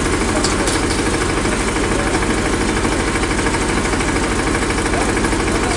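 An engine running steadily at an even idle, with a fast, regular low throb.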